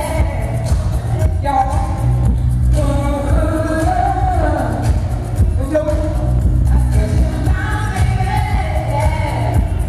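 Live disco-pop music played through stage speakers: a woman sings lead into a microphone over a heavy, steady bass line.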